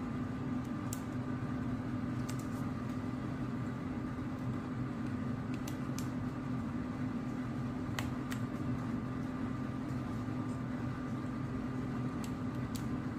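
Steady low room hum, with a few faint, scattered plastic clicks of keycaps being pulled off and handled on a mechanical keyboard.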